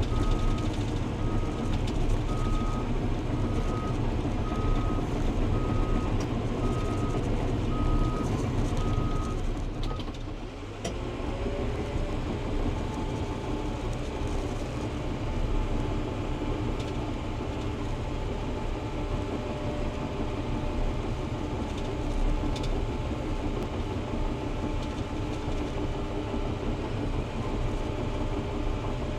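Diesel bulldozer running under load, its reverse alarm beeping at a steady pace until it stops about ten seconds in. The engine carries on working steadily after that.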